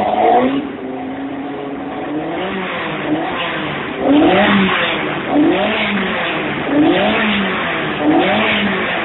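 Jidé race car's 1600 cc engine, heard from inside the car, runs steadily for about four seconds. It is then blipped four times, each rev rising and falling back, about a second and a half apart.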